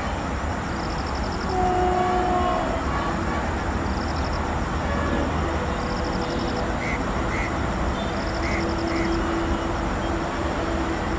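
Steady low outdoor rumble with a few short bird calls around the middle. A high, pulsing insect-like chirp repeats every second or two.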